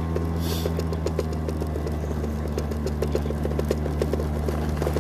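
Battery-powered scooter running along a gravel track: a steady low hum from its drive with a constant run of small clicks and rattles, and a brief hiss about half a second in.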